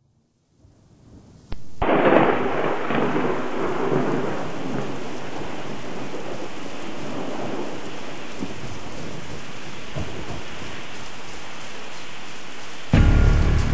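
A crack of thunder about two seconds in, its rumble easing into the steady sound of heavy rain. Music with a strong bass comes in just before the end.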